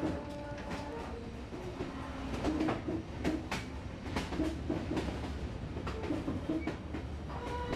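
Passenger train running along the track: a steady low rumble with irregular clicks and clacks from the wheels on the rails.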